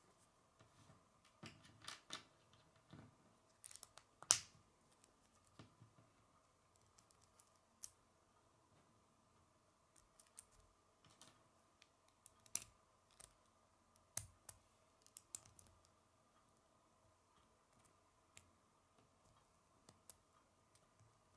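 Plastic K'nex pieces clicking and snapping as they are handled and pushed together, in scattered single clicks with the sharpest about four seconds in. A faint steady hum sits underneath.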